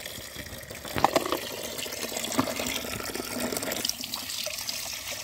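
A thin stream of water pouring into a plastic tub of muddy water while toy cars are rinsed and splashed by hand, with a couple of sharp knocks about a second in and again a little later.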